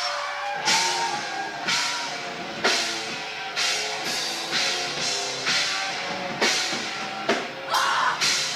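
Live rock band playing: drum kit with a cymbal crash about once a second over sustained guitar and bass notes.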